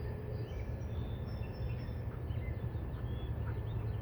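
Steady low outdoor rumble with small birds chirping faintly in the background.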